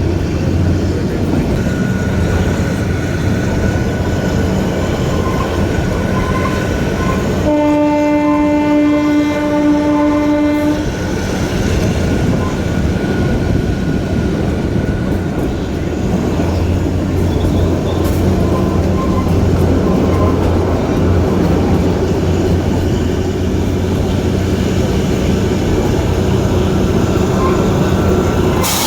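Kalka–Shimla narrow-gauge toy train running, a steady rumble of wheels and engine, with one long locomotive horn blast about eight seconds in that lasts about three seconds.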